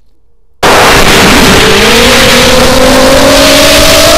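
ZMR250 racing quadcopter's brushless motors and propellers, heard from the onboard camera, spinning up suddenly about half a second in from rest on the ground and lifting off again. A loud whine with slowly rising pitch over heavy rushing prop wash and wind noise.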